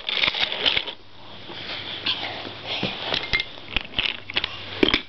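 Toy trains and trucks being handled and pushed about: a quick, irregular run of small clicks, knocks and rattles with rustling between them.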